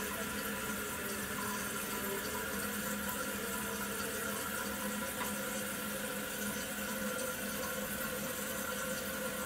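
Toilet refilling after a flush: a steady hiss of water running through the tank's fill valve. The refill tube is back in the overflow, so the bowl is filling back to its proper level.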